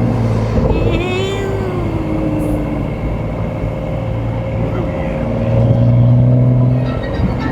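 BMW M235i's turbocharged N55 straight-six running under way, heard from inside the cabin as a steady drone that swells for a second or two past the middle. A short wavering voice-like tone comes in about a second in.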